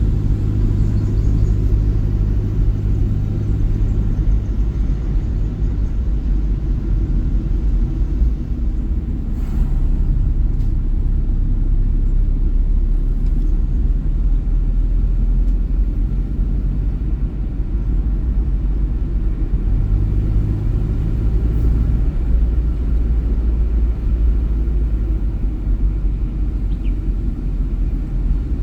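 A motor vehicle driving on a road: a steady low rumble of engine and road noise. The engine hum is stronger at the start, eases about six seconds in, and comes back around twenty seconds.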